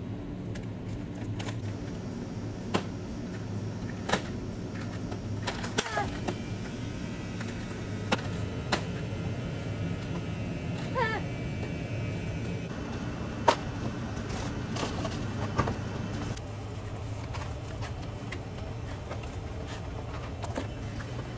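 Cardboard candy boxes being handled and set onto metal store shelves: scattered light knocks and rustles, one sharper knock about two-thirds of the way through, over a steady low hum.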